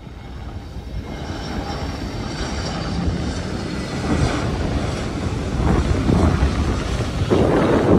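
Airbus A321neo jet engines on landing approach, a rumble that grows steadily louder as the airliner nears, with a faint high whine in the first few seconds.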